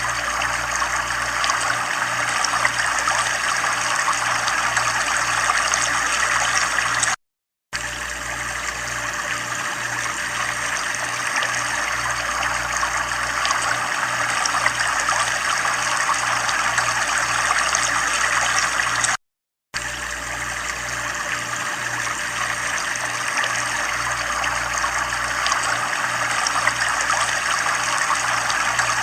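Steady running water, an even trickling flow, with a low, evenly pulsing hum underneath. The sound cuts out completely for about half a second twice, near 7 and 19 seconds in.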